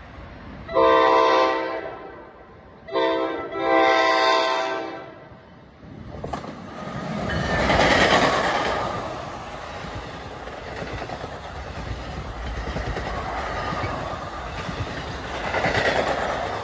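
NJ Transit ALP-46 electric locomotive's horn sounding for a grade crossing: a long chord blast, a short one, then a longer one. The locomotive and its double-deck coaches then pass close by: wheels rumbling and clattering on the rail, loudest as the locomotive goes past and then steady as the cars roll by, with a second swell near the end.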